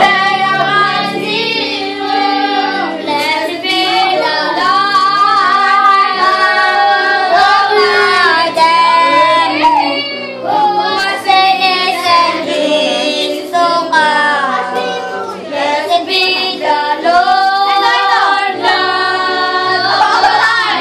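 Music: a sung song with a melodic voice over steady instrumental backing, continuous and loud.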